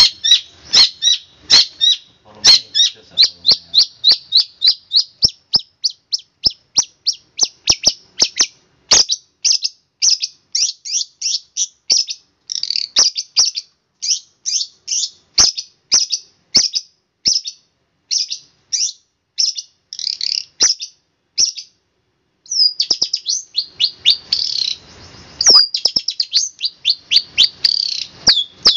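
Long-tailed shrike (cendet) singing a fast run of short, sharp, high notes, about three or four a second: the rapid 'tembakan' (shooting) song. After a brief break about three-quarters through, the notes come denser and run together.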